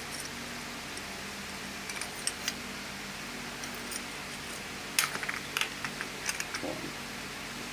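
Small metal-on-metal clinks and taps as a brass ferrule and knife blade are handled and fitted against a steel bench vise, with a couple of light clicks early and a quick run of clinks about five seconds in, over a steady low hum.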